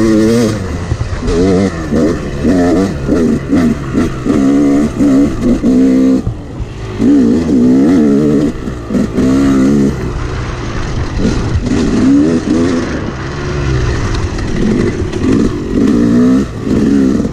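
Yamaha YZ250X two-stroke single-cylinder dirt bike engine under riding load, its pitch rising and falling over and over as the throttle is opened, eased off and the gears are changed. A steady rushing noise runs underneath, and the engine briefly drops back about six seconds in.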